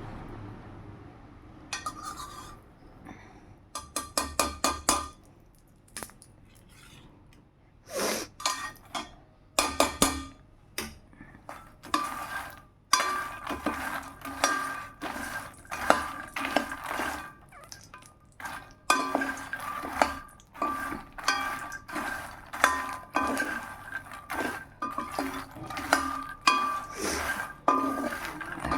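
Metal spoon or spatula clinking and scraping against a steel pan as fox nuts (makhana) are stirred while roasting. Each stroke gives a short ring. There are a few scattered clinks at first, then steady repeated strokes from about halfway through.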